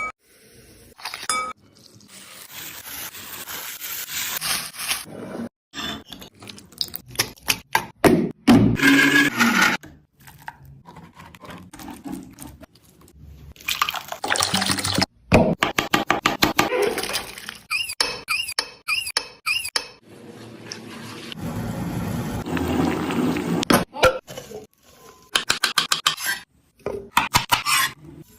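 Kitchen food-preparation sounds in short, abruptly cut segments: utensils clinking and tapping, and stretches of liquid pouring or splashing.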